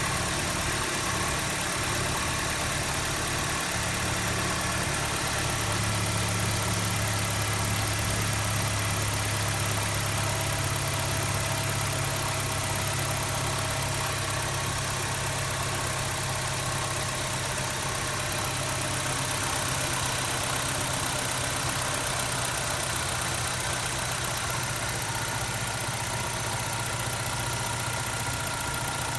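BMW E90 320i's four-cylinder petrol engine idling after a cold start, a steady hum with assorted mechanical noise; the owner is listening for an abnormal rubbing 'guon, guon' noise in the idle. The low note of the idle grows stronger about six seconds in.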